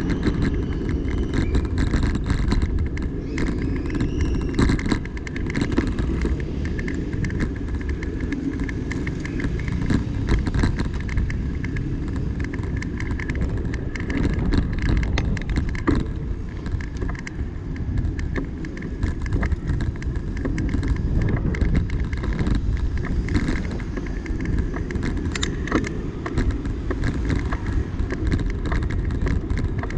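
Wind rushing over the microphone and a steady low road rumble from riding along a city bike lane, with many small rattles and clicks throughout.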